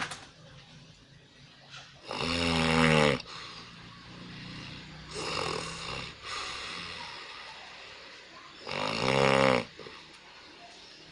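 A person snoring: two loud snores about a second long each, about two seconds in and near the end, with softer snoring breaths between them.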